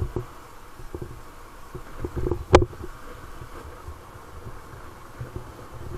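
Low rumble of wind and riding noise on the microphone of a camera mounted on a moving motorcycle, with a single sharp click about two and a half seconds in.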